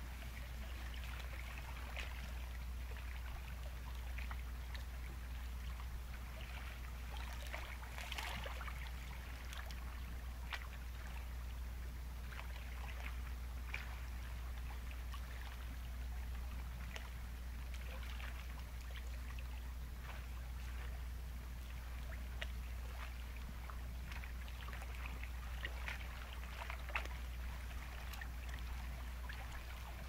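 Sea waves washing on a rocky coast: a steady low rumble under a fizzing hiss of water full of small ticks, swelling a little now and then.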